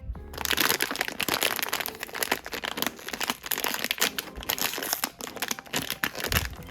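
Blind box packaging wrapper crinkling and crackling continuously as it is handled and opened.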